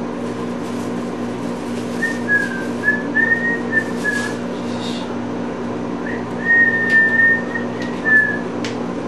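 A woman whistling: a few short wavering notes, then after a pause one long held note. Under it, a steady low hum and a few light clicks.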